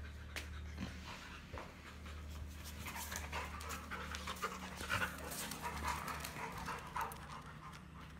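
Two Labrador retrievers play-wrestling, heard as panting and snuffling breaths with scattered scuffs and clicks, growing busier about halfway through, over a steady low hum.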